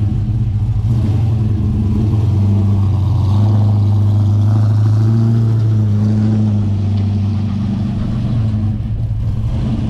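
Chevrolet LS1 5.7-litre V8 running at a steady fast idle, its speed lifting a little from about three seconds in and easing back after six seconds.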